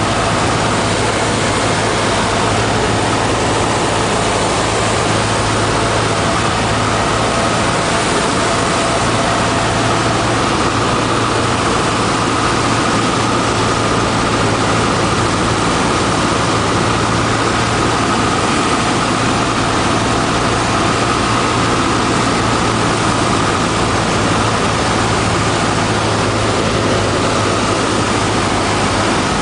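Single-engine light aircraft's piston engine and propeller heard from inside the cockpit: a steady drone with a low hum and a higher whine over air noise, on the approach to land.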